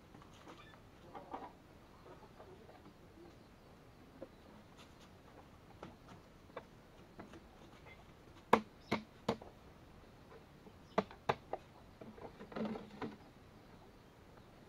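Plastic PVC pipe and elbow fittings knocking and clicking as they are handled and pushed together: three sharp knocks just past the middle, two more a couple of seconds later, then some rustling handling.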